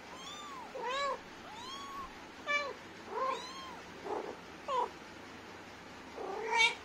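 Mother cat and her young kittens meowing: about eight short meows, each rising and falling in pitch, some lower and fuller and some higher and thinner, the loudest near the end.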